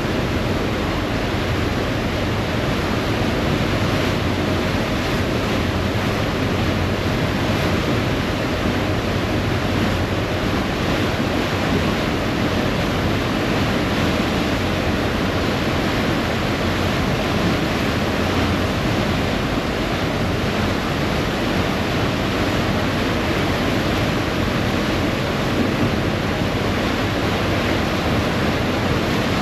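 Steady rushing of a ferry's churning wake water with the low rumble of the ferry under way, and wind on the microphone.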